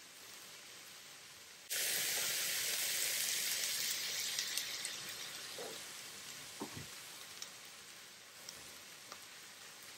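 Kitchen sink faucet turned on about two seconds in, cold water splashing over the drained lo mein noodles as a steady hiss that slowly eases off, with a faint sizzle of chicken browning in a hot pan underneath. A couple of light knocks near the middle.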